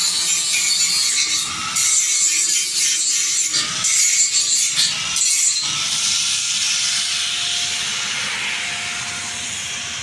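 Arc welding on a steel handrail: a harsh crackling hiss that comes and goes in uneven stretches, then runs steadier for the last few seconds.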